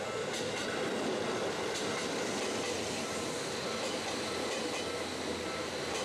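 Seibu 10000 series "New Red Arrow" limited-express train running past close by: a steady rumble of wheels on rail, with a few sharp clicks as the wheels cross rail joints.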